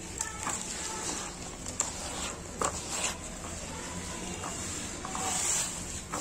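Gloved hands squeezing and crumbling wet cement paste: irregular wet squelches and clicks, with a louder gritty rustle of crumbling cement about five seconds in.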